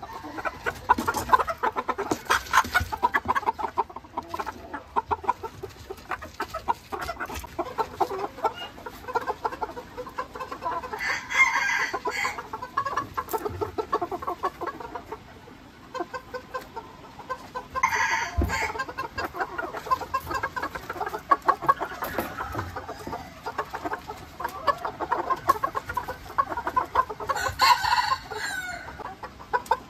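Ko Shamo chickens clucking steadily, with three louder calls about 11, 18 and 27 seconds in, the last lasting about two seconds.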